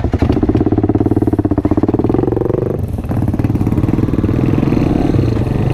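Small motorcycle engine pulling away on a rough dirt road: the revs climb for about three seconds, drop sharply as it shifts up a gear, then run steady.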